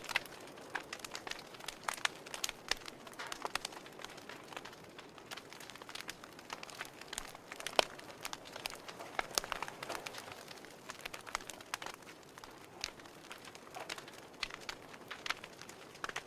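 Fire crackling: irregular snaps and pops over a soft hiss, with one sharper pop about eight seconds in.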